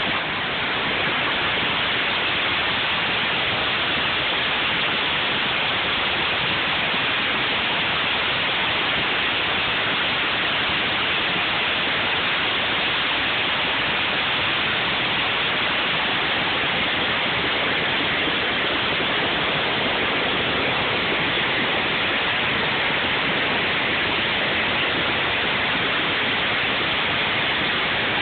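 River weir running high, with water pouring over it into churning white water: a steady, loud rush.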